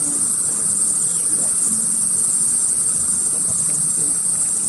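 A colony of thousands of bats roosting in the building, chattering as one steady, high-pitched din that never lets up.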